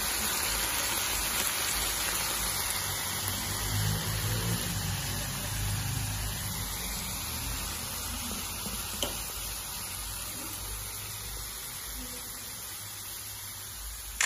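Chayote pieces sizzling in a pan as the last of the cooking water boils off: a steady hiss that fades slowly.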